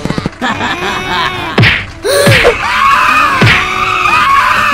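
Cartoon sound effects over background music: short pitched voice-like sounds arching up and down, several quick falling-pitch swoops, and a sharp crash-like hit about two seconds in.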